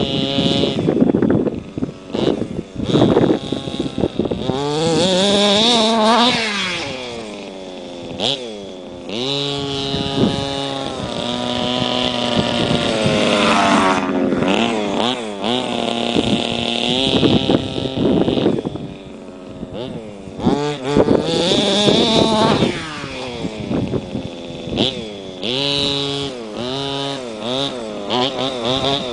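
Small two-stroke petrol engine of a large-scale RC buggy revving up and easing off again and again as it is driven, its pitch rising and falling in repeated sweeps.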